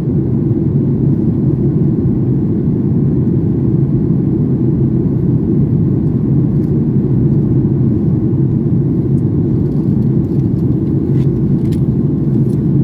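Steady cabin noise inside a Boeing 737 MAX 8 in flight: its CFM LEAP-1B turbofans and the airflow past the fuselage are heard through the cabin wall as a dull, even rumble.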